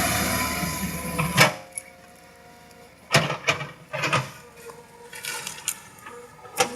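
Loud, steady engine noise that cuts off abruptly with a sharp click about a second and a half in. Scattered clicks and knocks follow.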